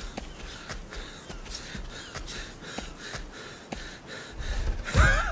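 An animated sheep snuffling and sniffing at the ground in short, repeated breaths, with a louder grunt near the end.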